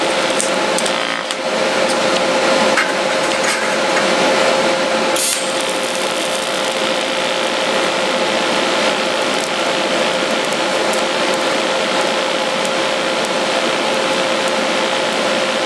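TIG welding arc from a Primeweld TIG 225x welding steel: a steady hiss with a steady hum beneath it. A few faint clicks come in the first few seconds.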